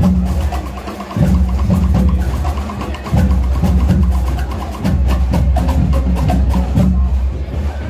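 Scout marching band's drums beating a march rhythm: many sharp stick strokes over a deep bass drum, in phrases broken by short pauses.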